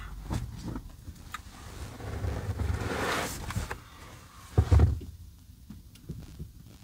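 A soft fleece blanket being pushed aside and rustling as a person shifts in a car seat, with a few small clicks and knocks. A heavy low thump comes a little before five seconds in.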